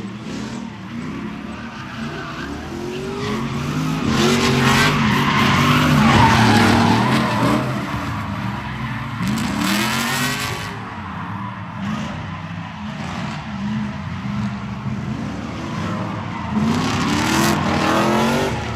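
Two drift cars sliding in tandem, engines revving up and down with the throttle while the tyres skid and squeal. The engines are loudest a few seconds in as the cars pass, and swell again near the end.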